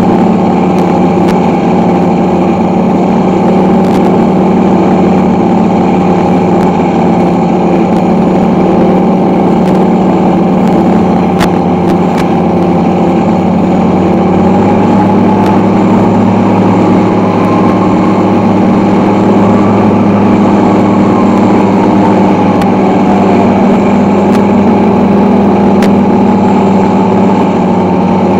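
Recorded P-51 Mustang V-12 engine sound played through the RC model's onboard Benedini sound system, running steadily. There is a change in tone about halfway through.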